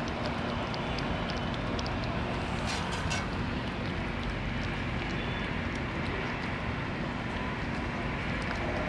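A cat eating from a metal bowl, with faint small chewing clicks and a short cluster of sharper clicks about three seconds in, over a steady outdoor background rumble.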